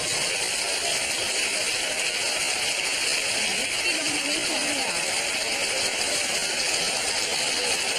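Steady, even hiss that does not change, with faint voices underneath.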